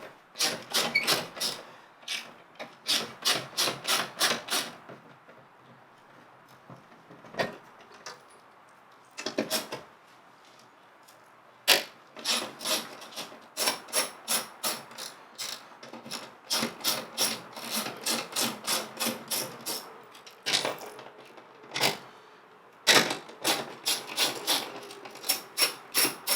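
Ratchet wrench clicking in quick runs of about four clicks a second, with short pauses between runs, as it backs out a door-panel bolt.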